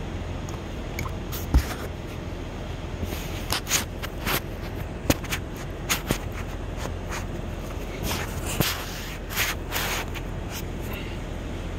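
Hand work on a car door's trim and frame seals: scattered scrapes and rustles with a few sharp clicks, over a steady low hum.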